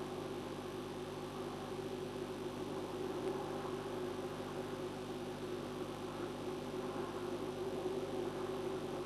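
Steady hum and hiss with several fixed hum tones and no distinct events; the falcon makes no call.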